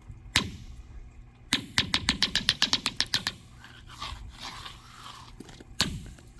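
Pieces of ice striking and skittering across a thin sheet of ice frozen over a swimming pool: a sharp knock, then a quick run of about a dozen clicks, and another knock near the end.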